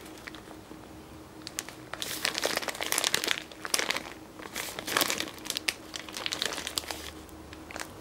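Thin clear plastic parts bag crinkling in the hand as it is squeezed and turned over, with the coiled cord inside shifting; the crackling comes in irregular bouts, heaviest a couple of seconds in and again around the middle.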